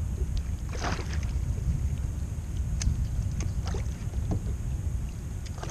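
Wind rumbling on the microphone, with a few short splashes and knocks while a hooked bass is fought from a fishing kayak.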